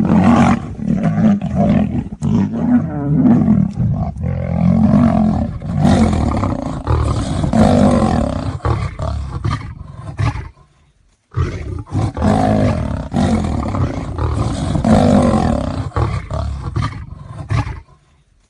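Lion and tiger roaring at each other in a fight: deep, rough, near-continuous roars that break off for about a second past the middle.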